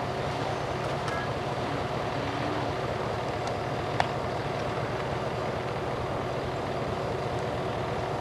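Diesel engine of heavy recovery equipment running steadily at idle, a constant low hum, with a single sharp click about four seconds in.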